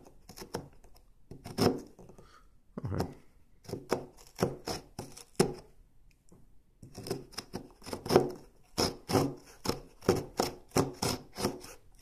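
Serrated saw blade of a Stanley 12-in-1 multi-tool sawing a softwood 2x4 block by hand: short rasping back-and-forth strokes, about two a second, with a pause of about a second near the middle.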